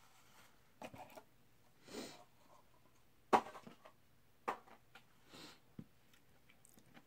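Quiet close-up eating sounds: chewing with a scattering of sharp mouth clicks and smacks, two soft rushes of noise and a light knock of food being handled.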